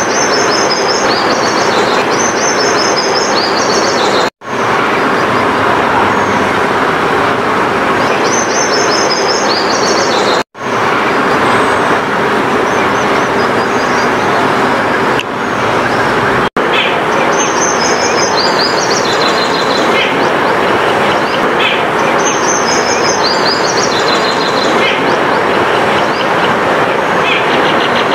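A songbird singing a short phrase of chirps that steps down in pitch, repeated four times over a loud, steady rushing background noise. The sound cuts out abruptly three times.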